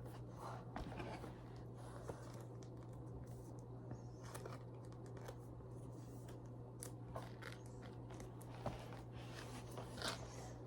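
Faint crinkling and rustling of Pokémon card foil packs and cards being handled, with scattered light clicks, over a steady low hum.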